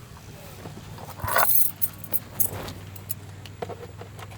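Keys jangling with small handling clicks and a brief rustle, over a low steady hum.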